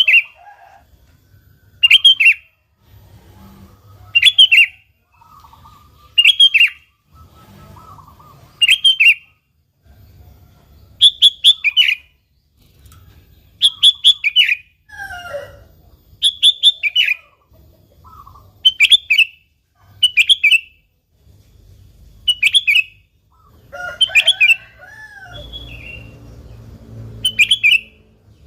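Sooty-headed bulbul (kutilang) calling over and over: short, loud phrases of a few quick chirping notes, about one every two seconds. Fainter, lower gliding calls come in near the middle and again near the end.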